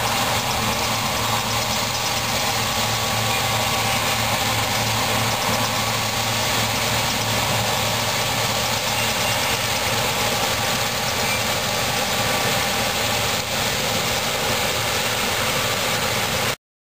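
Farm diesel engine noise running steadily, with a constant low hum, cutting off abruptly near the end.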